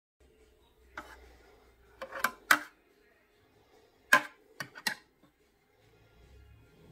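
A few sharp knocks and clinks: one about a second in, a quick group around two seconds in and another around four seconds in, over a faint steady hum.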